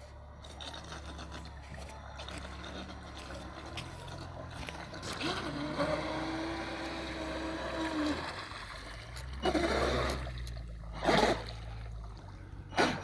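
Traxxas M41 RC speedboat running across the water, its brushless electric motor giving a steady pitched whine that swells for a few seconds in the middle. Near the end come three short, loud rushes of noise.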